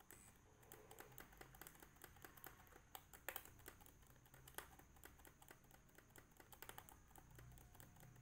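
Keys on a Lenovo B40-80 laptop keyboard tapped over and over, a faint irregular run of small clicks, several a second. The taps are a key being pressed repeatedly at start-up to get into the BIOS.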